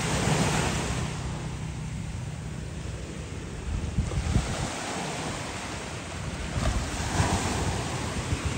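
Small sea waves washing onto a beach, swelling near the start and again about seven seconds in, with gusts of wind buffeting the microphone.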